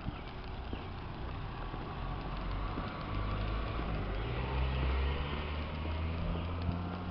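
A motor vehicle's engine running on the street, a low rumble that grows louder over the second half as it comes closer.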